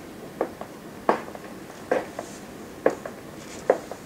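A series of soft knocks in a room, about one a second, many in quick pairs.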